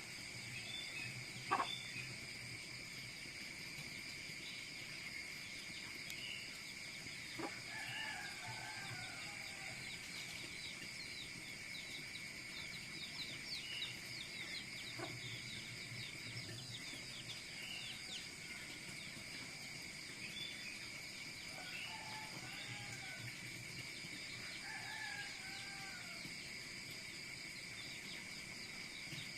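Outdoor ambience of insects, crickets chirping steadily, with short bird calls a quarter of the way in and twice more near the end, and a few sharp cracks.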